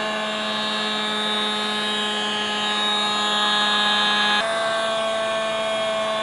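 Small handheld electric hot air gun running steadily, its fan motor giving a steady hum and whine over the rush of air it is blowing out. The tone shifts abruptly about four seconds in.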